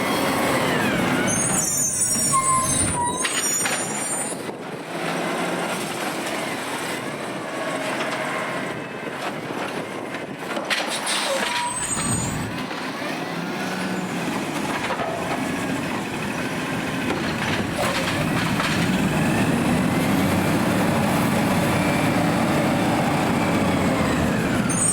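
Automated side-loader garbage truck working: engine and hydraulics rising and falling in pitch over and over as the arm cycles, with short high squeals about two seconds in and again near the middle.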